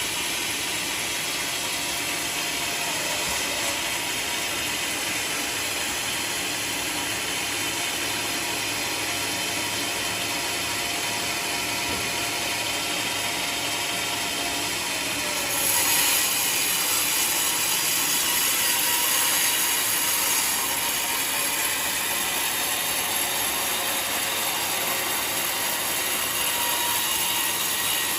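Homemade sawmill running and cutting a waru log into planks, a steady, dense rattling saw noise, louder and harsher for about five seconds just past the middle.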